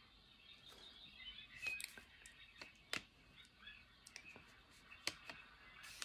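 Faint, irregular light clicks and taps, about ten in all, from paintbrushes and a small painted wood slice being handled on a paper-covered table, over quiet room tone.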